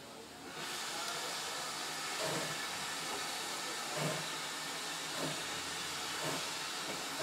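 Steam locomotive letting off steam: a steady hiss that starts suddenly about half a second in.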